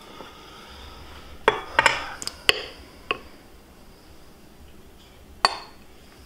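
Kitchen dishes clinking: a ceramic bowl handled against a stand mixer's stainless steel bowl. A quick run of sharp clinks comes about a second and a half in, then one louder, briefly ringing clink near the end.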